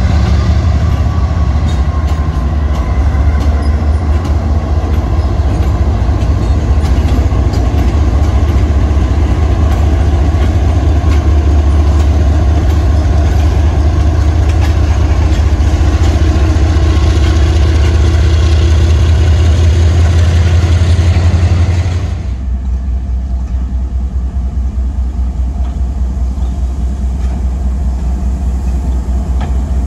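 Diesel-electric freight locomotives passing close by, a loud steady engine drone mixed with wheel and rail noise. About two-thirds of the way through it drops suddenly to a quieter, more distant locomotive rumble.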